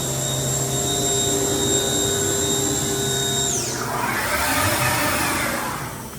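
Haas GR-510 CNC router spindle running at high speed with a steady high-pitched whine. About three and a half seconds in, the spindle is dialled down and the whine falls away in pitch. A rushing noise follows as it winds down.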